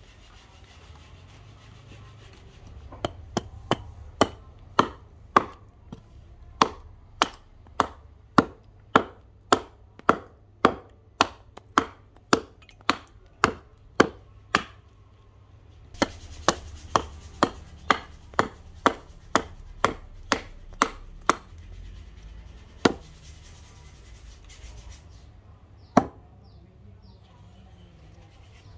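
Keen Kutter hatchet chopping and hewing a block of wood held upright on a chopping stump: a run of sharp wooden chops, about two a second. After a short pause about halfway, the chopping resumes, then ends with two single, widely spaced blows.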